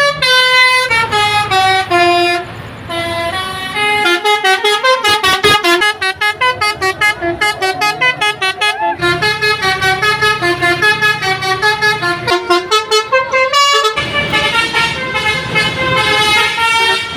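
Basuri V3 'telolet' musical bus air horns playing tunes, horns on different buses taking turns, with a run of rapid short notes in the middle and held notes elsewhere. A bus engine runs low underneath.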